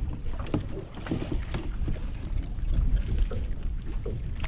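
Low wind rumble on the microphone, with scattered light knocks and rustles of handling.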